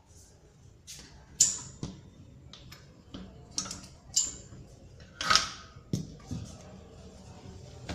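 A series of irregular sharp clicks and knocks, with a louder short scraping hiss about five seconds in.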